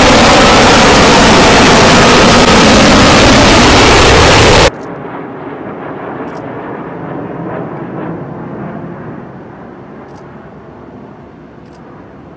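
F-35B Lightning II jet engine roar, so loud it saturates the recording, as the jet comes in low with gear down in landing configuration. About five seconds in it cuts abruptly to a much quieter, more distant jet rumble of F-35s passing overhead, which slowly fades.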